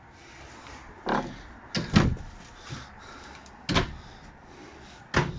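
A handful of separate dull knocks and thumps, the loudest about two seconds in, the kind made by handling cabinet doors or stepping on a hollow floor.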